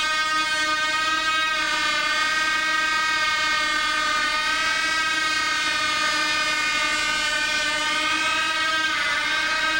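Engine of a home-built radio-controlled VTOL model aircraft running steadily in a hover: a loud, high-pitched whine that dips slightly in pitch about two seconds in and again near the end.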